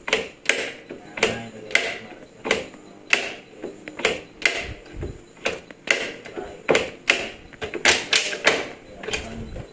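Irregular metallic clinks and knocks of tools and engine parts being handled while a small Honda motorcycle engine is dismantled, its cylinder block being taken off, with a couple of duller thumps about halfway through and near the end.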